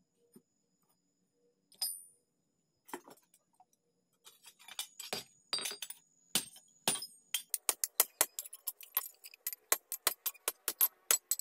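Hammer striking steel on an anvil, each blow ringing. A few scattered strikes at first, then a quick, steady run of about three to four blows a second over the second half.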